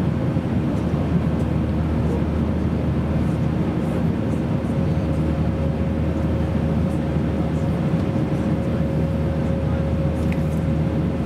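Steady cabin drone of an Airbus A320-232 airliner from a window seat: engine and airflow noise, even and unchanging, with a thin steady hum on top.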